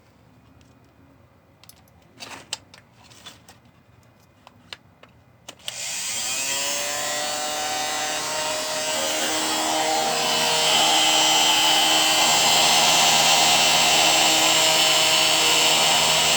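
A few sharp clicks and taps, then a blender motor starts about six seconds in, fed by a homemade DC-DC inverter through a bridge rectifier. Its whine rises in pitch as it spins up, then it runs steadily, getting louder about ten seconds in.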